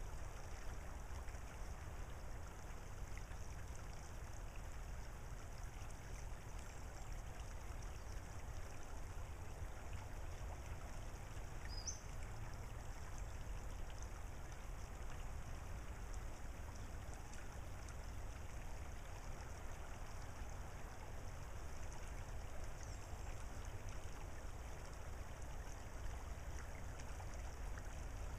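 Small tidal creek trickling steadily over a gravel bar, with a low steady rumble underneath. A single short, high rising chirp sounds about twelve seconds in.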